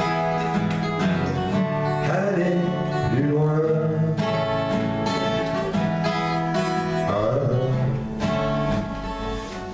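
Steel-string acoustic guitar played in a steady chord accompaniment, with a man's singing voice coming in over it in a few phrases.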